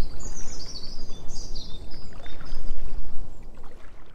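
Birds chirping and warbling over a steady low rumbling noise. The birds fall away about two seconds in, and the whole fades out near the end.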